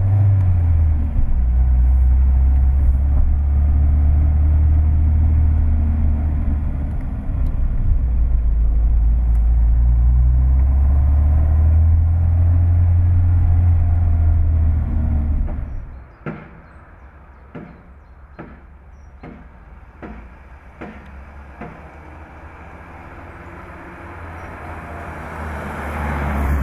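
Citroën DS 21's four-cylinder engine running under way, heard from inside the cabin as a loud, steady low drone whose pitch sinks and rises gently with the driving. About sixteen seconds in it cuts to the car heard from the roadside: much quieter, with a series of sharp clicks, and the car's sound swelling as it approaches near the end.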